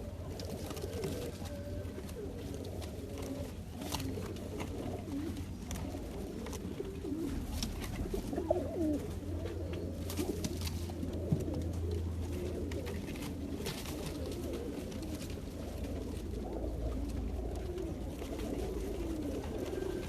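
A flock of Swallow fancy pigeons cooing, many overlapping calls, with a steady low hum and a few sharp clicks.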